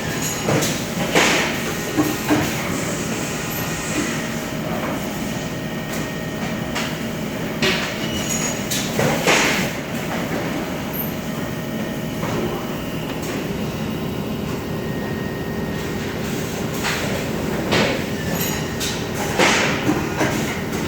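A machine running with a steady rumble, with irregular knocks and clanks over it.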